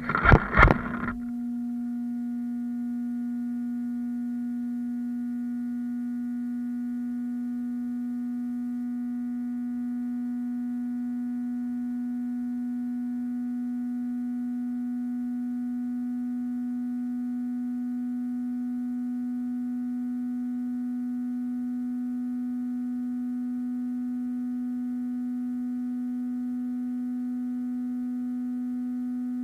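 Arrma Talion RC car's driving noise cuts off about a second in, leaving a steady, unchanging low electronic tone.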